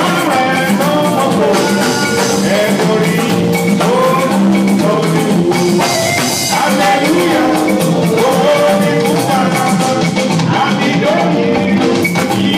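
Band music with singing over a drum kit and other instruments, playing continuously at a steady loud level.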